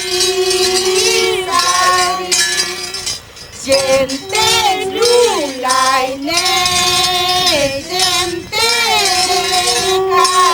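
Singing in a high voice, holding long notes and sliding slowly between pitches, with a brief pause about three seconds in.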